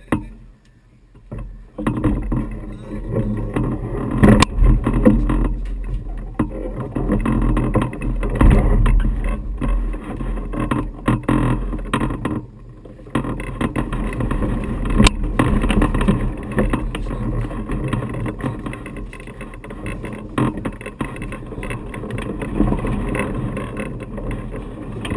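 Wind buffeting an outdoor camera microphone as a loud, steady low rumble, starting about two seconds in, with a few sharp knocks.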